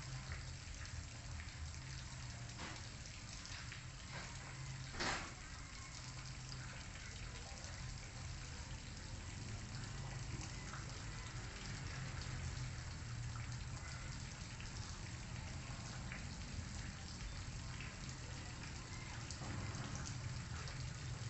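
Steady hissing background noise over a low hum, with a single sharp click about five seconds in.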